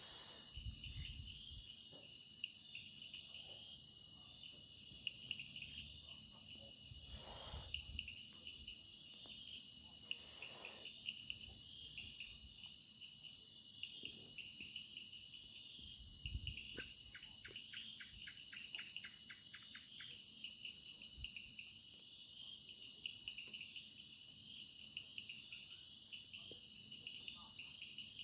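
A chorus of crickets and other insects chirring steadily in several high, pulsing tones. A run of fast ticks comes about two-thirds of the way in, and a few brief low rumbles sound underneath.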